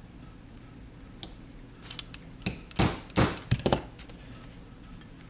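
Small plastic and metal gun parts being worked apart by hand: a Glock's OEM plastic trigger pad being pulled off the metal trigger bar after its pin is punched out. A few light clicks, then a cluster of louder short scrapes and clicks about three seconds in.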